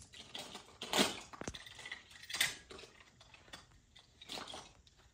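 Small toy cars clattering and clinking together as a child's hand rummages through them in a plastic storage basket, with louder rattles about a second in, halfway through and near the end.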